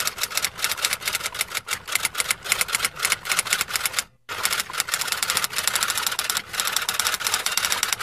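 Typewriter keys typing: fast runs of sharp mechanical clacks, many a second, broken by a short pause about four seconds in.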